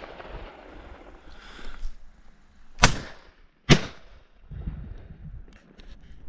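Two shots from a 28-gauge Kofs shotgun, fired in quick succession less than a second apart.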